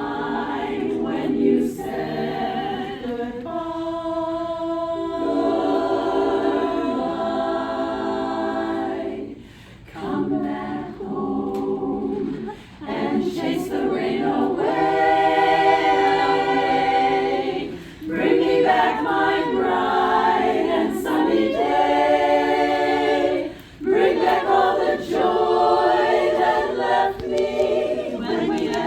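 A cappella choir singing sustained phrases in harmony, with short breaths between phrases.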